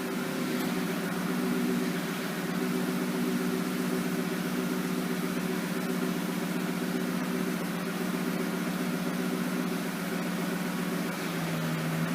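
Ford Mustang engine idling with a steady hum.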